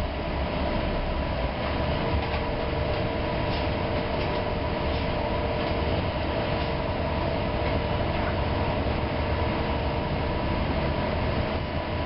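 City bus in motion, heard from inside the passenger cabin: steady engine and road rumble with a constant whine running through it.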